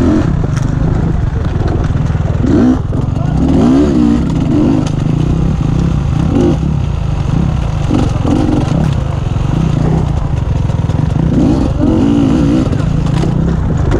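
Beta 250RR enduro motorcycle engine heard from the rider's position, revving up and falling back again and again as the throttle is worked over rough ground. Scattered knocks and clatter come through as the bike rides over rocks.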